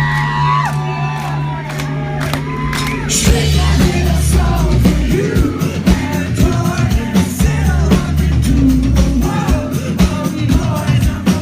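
Live band playing, with a sung vocal over a steady drum beat and sustained bass notes, with some shouts from the crowd.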